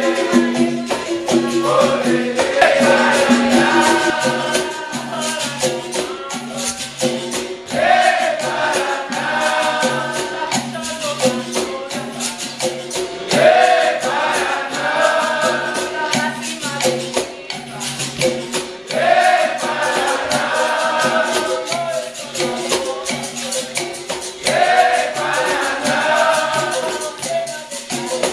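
Capoeira Angola roda music: berimbaus and a pandeiro keep a steady rhythm under call-and-response corrido singing, the group chorus answering about every five and a half seconds.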